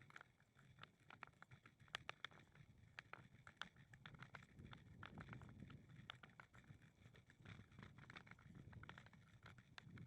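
Faint footsteps and light irregular clicking taps of walking on a path, over a low rumble.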